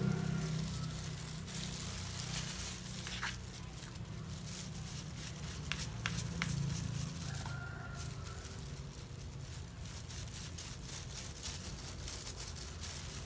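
Disposable plastic gloves crinkling and rustling as hands squeeze and work thick dye paste through a goat-hair weft, with a few sharp clicks. A low steady hum runs underneath.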